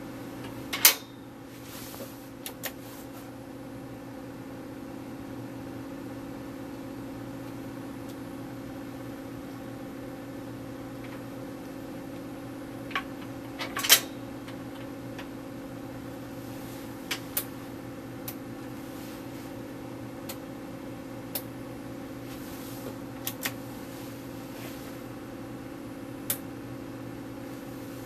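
Intoxilyzer 5000 breath-alcohol instrument running with a steady hum, while its side-mounted DIP switches and metal case are handled. There are sharp clicks about a second in and about fourteen seconds in, and a scattering of lighter ticks after that.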